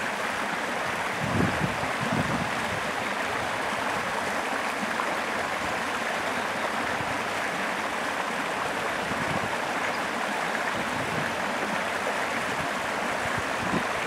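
Shallow creek running over rocks in a riffle: a steady rushing, burbling water sound. A few soft low thumps come through it, two in the first couple of seconds and one at the very end.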